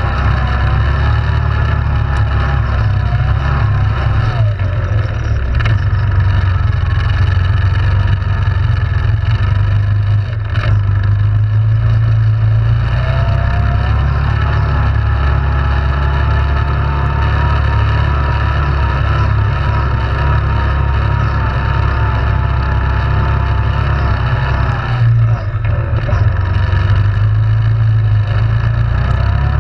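Yamaha Grizzly 700 ATV's single-cylinder engine running under way, its pitch rising and falling with the throttle, easing off briefly about 25 seconds in.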